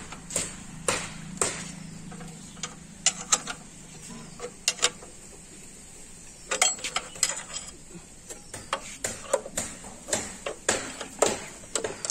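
Hand spanners clicking and clinking irregularly against bolts and the steel body of a power tiller as bolts are worked loose or tightened: scattered sharp metallic ticks, some in quick pairs.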